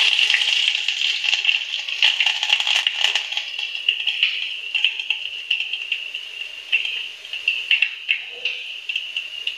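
Black mustard seeds and chopped green chillies spluttering and crackling in hot oil in a steel pan as a tadka (tempering) fries. The dense crackle eases off toward the end.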